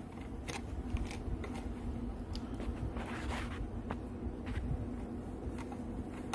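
Scattered small clicks and a short scrape of hand tools working a screw in a rivet nut set in an aluminium enclosure, over a steady low hum.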